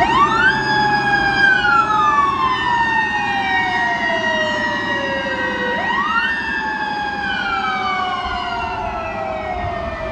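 Emergency-vehicle sirens wailing together. One siren winds up quickly, holds its high pitch, then winds slowly down over several seconds, twice, while other sirens overlap it with slowly falling tones.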